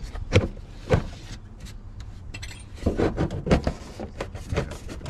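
Hard objects clinking and knocking together in a string of sharp, separate clinks, thickest about three seconds in.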